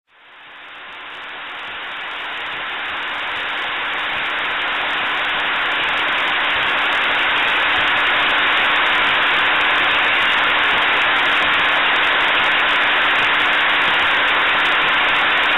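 Zahoransky C235 CNC brush drilling and tufting machine running: a steady, even mechanical din with a faint steady hum underneath, swelling up over the first several seconds and then holding level.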